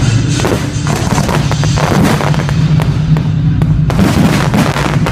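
Fireworks display: aerial shells and comets firing and bursting in quick succession, a dense run of bangs with no pause.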